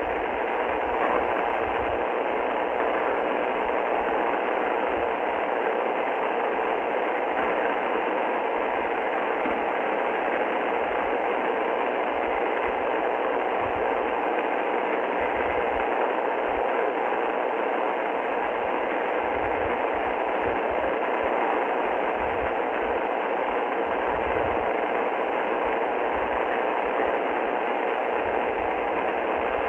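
Shortwave radio static: a steady, even hiss from an Icom IC-R30 receiver tuned to 6.955 MHz upper sideband, with no voice, music or tone in it.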